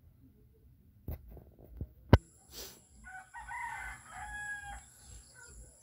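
A rooster crowing once, starting about three seconds in and ending in a held note. Just before it come a couple of sharp knocks, the loudest about two seconds in.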